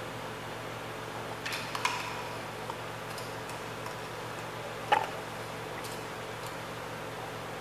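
Steady low background hum with a few light clicks, the sharpest about five seconds in.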